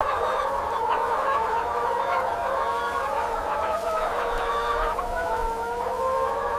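Many chickens calling at once in a crowded poultry house, a continuous overlapping chorus with a faint steady hum underneath.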